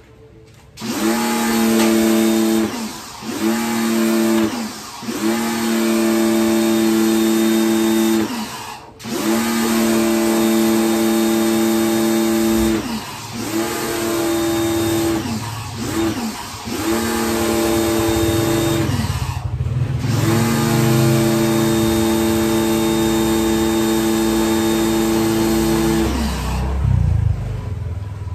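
Kawasaki ACK 302 electric pressure washer running with its spray hissing, the motor and pump humming and starting and stopping about nine times as the trigger is squeezed and released. The hum rises in pitch as it starts and sinks as it stops.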